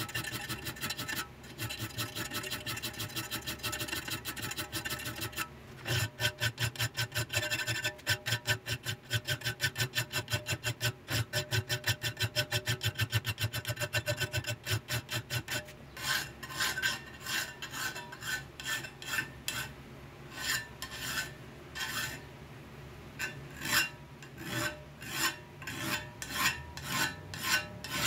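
Hand files rasping back and forth along the cut edge of a steel table-saw riving knife held in a bench vise, finishing the edge after a grinder cut. Quick, even strokes through the first half, then slower, separate strokes from about halfway.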